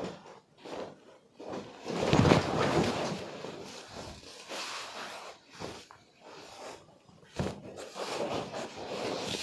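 Rustling and handling noise of a chiropractic manipulation on a patient's body, with a louder burst about two seconds in and a short sharp click about seven and a half seconds in.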